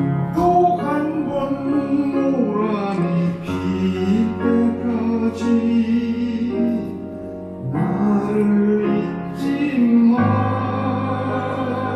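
A man singing a slow Korean ballad and accompanying himself on a grand piano, held chords changing every few seconds under the sung melody.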